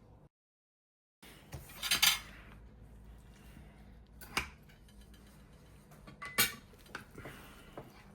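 Cutlery and dishes clinking and clattering in a kitchen, after a brief total dropout of sound near the start. The loudest clatter comes about two seconds in, with a sharp clink a little after four seconds, another loud one past six seconds, and a few lighter clicks near the end.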